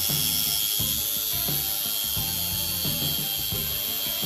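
DeWalt cordless angle grinder running at speed while a screw spun in a cordless drill is ground to a point against its wheel, giving a steady high whine with grinding hiss.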